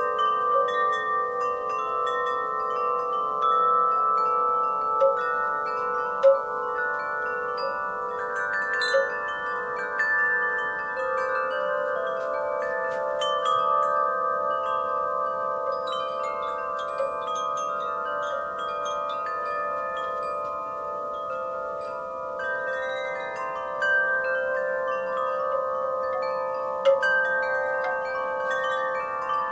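Wind chimes ringing in a breeze: many overlapping long-sustained tones struck at irregular moments, with a few sharper, louder strikes now and then, over a faint breeze hiss.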